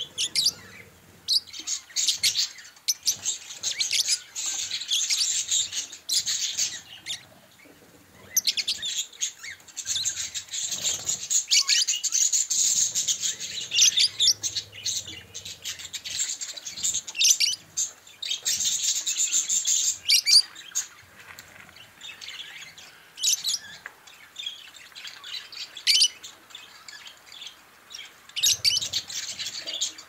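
A flock of budgerigars chattering and chirping, in bouts of busy warbling a few seconds long with sparser single chirps between them.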